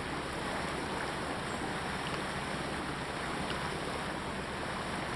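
Sailboat under power: a steady low engine hum under a constant rush of water past the bow.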